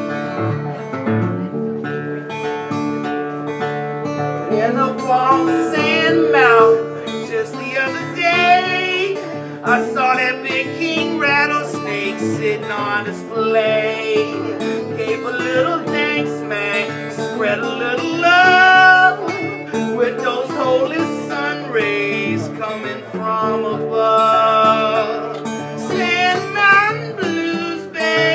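Acoustic guitar playing a slow country-folk song, with a man's sung vocal coming in about five seconds in and continuing over the guitar.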